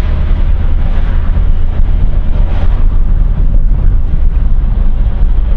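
Motorcycle on the move: a steady low rumble of wind buffeting the microphone, mixed with engine and road noise.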